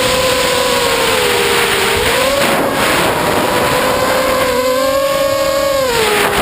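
Racing quadcopter's four brushless motors (2205, 2350kv on 4S) and propellers whining in flight, with wind rushing over the onboard microphone. The pitch sags a little, swings back up about two seconds in, then grows louder and fuller with throttle about halfway through before dropping just at the end.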